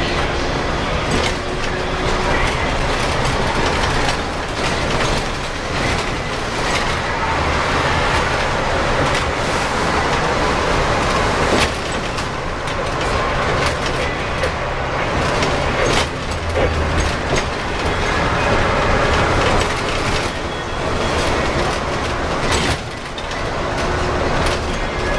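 Inside a Scania L94UB city bus under way, heard from the front: the rear-mounted Scania DC9 9-litre six-cylinder turbo diesel running steadily with its turbo audible, over road noise. Frequent body rattles and clunks run through it.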